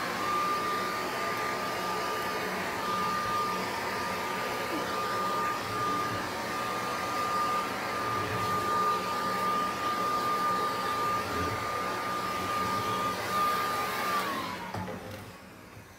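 Dog grooming dryer with a flexible hose and nozzle running on low: a steady rush of air with a high, even motor whine. About two seconds before the end it is switched off and the whine drops in pitch as the motor winds down.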